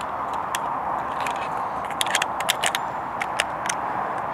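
Small metal clicks and scrapes from hands working the action of a Greener single-barrel shotgun, a scattered run of them busiest in the middle, over a steady hiss.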